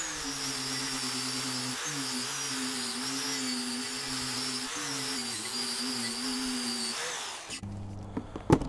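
DeWalt angle grinder with a wire cup brush running against a rusty plate weight. A steady motor whine sits over a scratchy wire-on-metal hiss, and the pitch sags briefly a couple of times. It stops about seven and a half seconds in.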